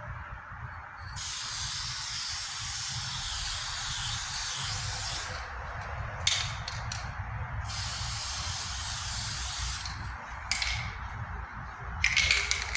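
Aerosol can of Dupli-Color Perfect Match Cardinal Red lacquer paint spraying in bursts as another coat goes on: a long spray of about four seconds, a few short puffs, a second long spray of about two seconds, then short bursts near the end.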